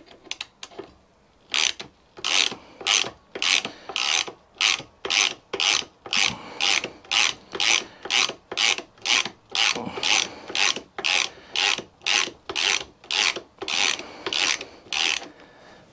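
Hand ratchet wrench being swung back and forth on a bolt, each swing giving a short rasp of pawl clicks, about two a second. It starts after a few small clicks and stops shortly before the end.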